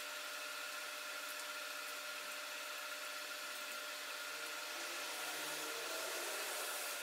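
Steady, faint background hiss with a faint steady hum: room tone, with no distinct event.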